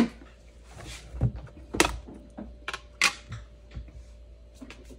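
About six sharp knocks and clacks from kitchen things being picked up and set down, with the loudest near two and three seconds in, over a faint steady hum.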